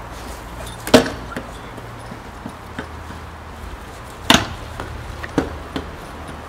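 Stunt scooter hitting asphalt during a jump trick: two sharp slams, about a second in and about four seconds in, followed by lighter clacks and rattles as it rolls on over the cracked surface.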